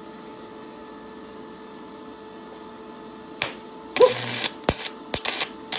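A welding arc drawn from a screwdriver used as the electrode. After a steady hum, the arc strikes with a sharp crack about three and a half seconds in, crackles for half a second, then sputters in several brief sharp strikes.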